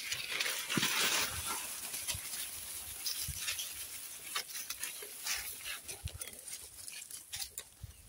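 Goat kids feeding on a pile of fresh leafy branches: the leaves rustle as they tug at them, loudest about a second in, with many small sharp crunches and snaps from nibbling and chewing.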